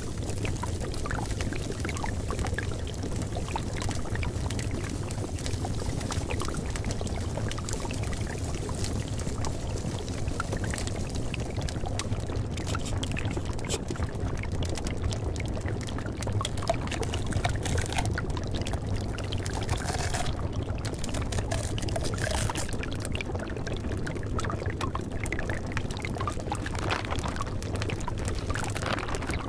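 Steady pouring, trickling water with a low hum underneath, used as the masking track of a subliminal audio.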